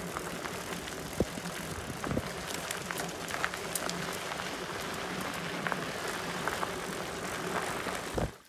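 Loaded bicycle rolling along a dirt forest road: steady tyre and road noise with scattered clicks and rattles from the bike. It cuts off abruptly near the end.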